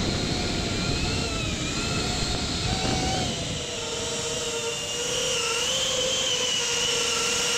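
Small ducted-propeller FPV drone (cinewhoop) in flight, its motors whining at several steady, slightly wavering pitches. Wind rumbles on the microphone for the first few seconds.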